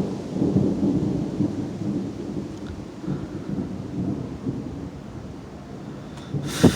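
Thunder rumbling low after a close lightning strike, slowly fading, with one sharp click near the end.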